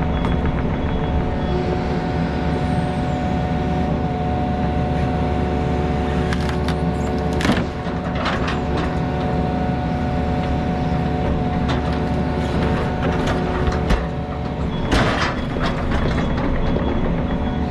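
Skid steer's diesel engine running steadily, with a few short hissing bursts about halfway through and again near the end.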